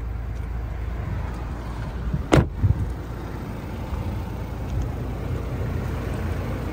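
A sharp knock about two seconds in, quickly followed by a softer one, over a steady low rumble.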